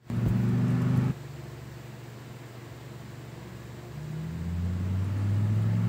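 Steady low hum of a motor vehicle engine running, loud for about the first second and then cut off abruptly to a quieter background. From about four seconds in, a lower engine drone grows steadily louder.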